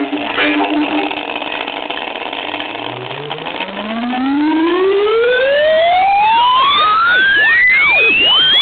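Music from a small pen-drive speaker box, giving way about two and a half seconds in to a test tone that sweeps steadily upward in pitch from a low hum to a high whistle, getting louder, with fainter tones sliding up and down around it, and cutting off suddenly at the end.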